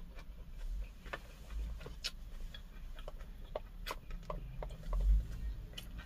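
Irregular small clicks and taps of eating, about a dozen over a few seconds, over a low rumble, with a dull thump about five seconds in.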